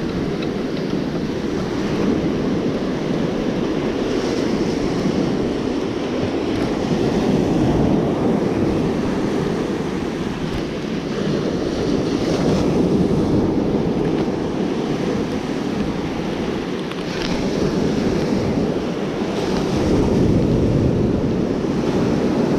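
Ocean surf breaking and washing up the beach, swelling and easing every few seconds, with wind rumbling on the microphone.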